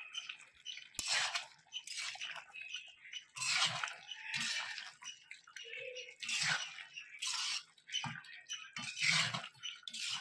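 Metal spatula scraping and stirring through thick turkey curry in a black kadai: a series of uneven scrapes, roughly one a second, with the wet chunks of meat sloshing against the pan.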